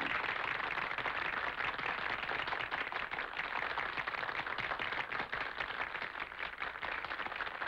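Audience applauding: a steady clatter of many hands clapping, easing slightly near the end.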